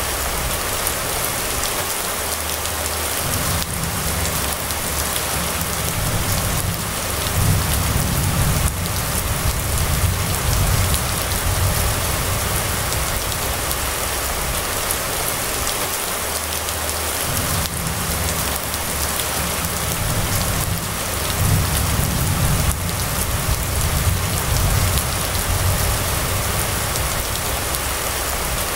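Steady rain falling on a wet road. A low rumble swells up twice, about three seconds in and again about seventeen seconds in, lasting several seconds each time.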